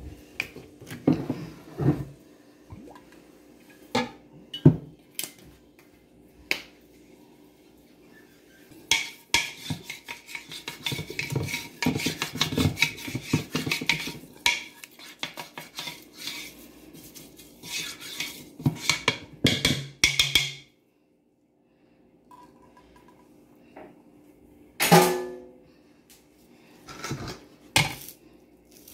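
Kitchen clatter: a plastic olive oil bottle and a white bowl being handled on a countertop, with many scattered knocks and clicks. The sound drops out briefly about two-thirds through.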